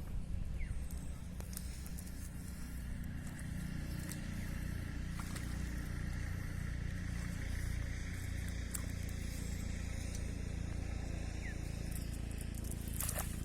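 Steady low engine drone, with scattered small clicks and a short, loud hissing burst near the end.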